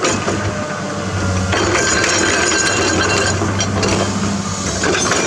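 Heavy diesel excavator engine running steadily at a construction site, joined about a second and a half in by a dense clatter of clinks and scraping, as of rock and dirt being worked.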